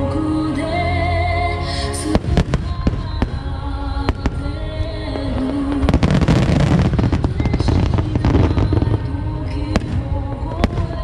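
Aerial fireworks shells bursting: a few single sharp bangs at first, then a dense run of bangs and crackling from about six seconds in to about nine, over a slow sung ballad.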